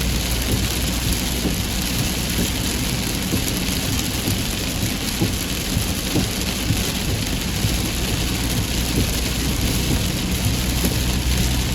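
Heavy rain falling: a steady, dense hiss of rain with many small drop patters.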